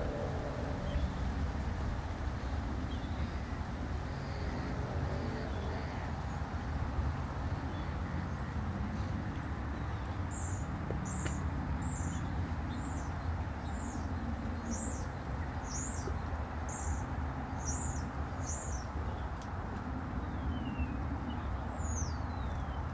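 Outdoor lakeside ambience with a steady low rumble. A small bird calls over it, giving a short, high, falling chirp more than a dozen times, a little faster than once a second, from about seven seconds in. A single falling whistle follows near the end.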